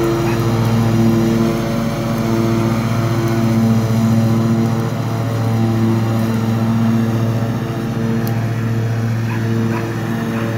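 Riding lawn mower's engine running steadily under load while mowing, a constant loud hum that swells and dips slightly.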